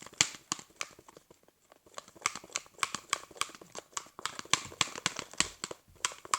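A sticky liquid-soap-and-salt slime mixture being stirred: quick wet clicking and crackling, several a second, with a short pause about one and a half seconds in.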